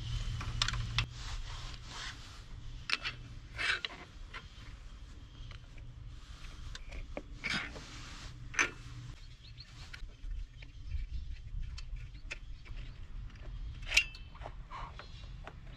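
Light clicks and scrapes of a screwdriver and small metal parts of a Suzuki K90 motorcycle carburettor being handled during disassembly, a few sharper clicks standing out, over a low steady background rumble.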